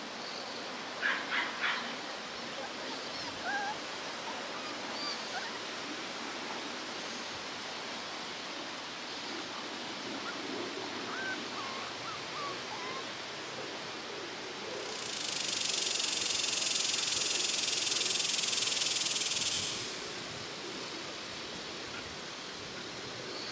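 Small puppy yips and squeaks from a litter of Corgi–Australian Shepherd cross puppies at play, with three sharp little calls in quick succession about a second in and a few faint ones later, over a steady outdoor background. About fifteen seconds in, a steady high-pitched buzz comes in and runs for about five seconds before stopping.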